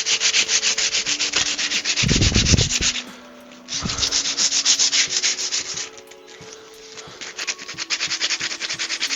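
Sandpaper rubbed by hand along a sharp cut edge to smooth it, in rapid back-and-forth strokes. It pauses briefly about three seconds in and again around six seconds, with a dull bump about two seconds in.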